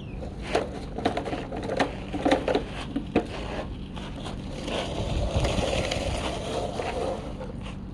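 Toy RC excavator and dump truck working loose dirt: a run of sharp clicks and knocks, then from about halfway a steadier gritty rush of several seconds.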